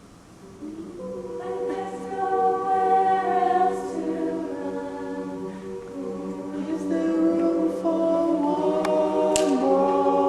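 A choir singing, the voices coming in about a second in and holding drawn-out chords that shift through the passage. A sharp click is heard near the end.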